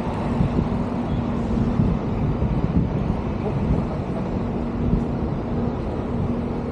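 City traffic noise and wind buffeting an action camera's microphone while cycling. A steady low hum runs through most of it and drops out for about a second in the middle.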